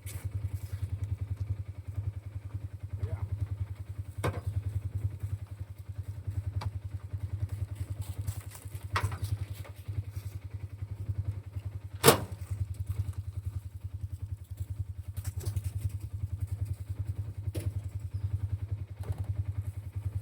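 An engine running steadily at a low idle, with scattered light knocks and one sharp, loud thump about twelve seconds in.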